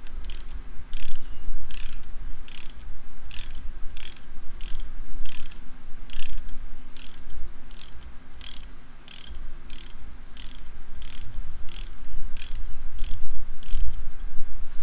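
Ratchet wrench clicking on each return stroke, a sharp click about every two-thirds of a second, as a bolt is worked loose from the vise.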